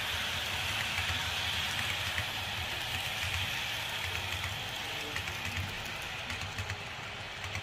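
Metal wheels of HO-scale model tank cars and a caboose rolling over the track, a steady hissing clatter with a low rumble that slowly fades as the end of the train passes.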